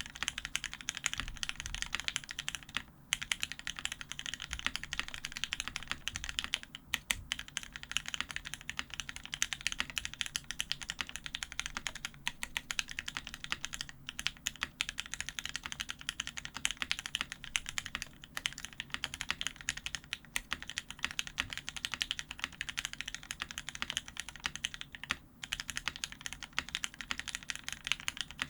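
Continuous fast typing on an F1-8X custom keyboard fitted with lubed, filmed Gateron Ink Black linear switches on an aluminium plate, with Hammerworks Desko PBT keycaps. Keystrokes come in a dense, even stream, broken by brief pauses a few times.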